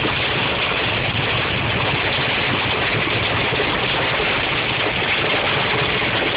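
Heavy rain and hail hitting the car's roof and windscreen, with tyres hissing on the flooded road, heard from inside the cabin as a steady, loud wash of noise.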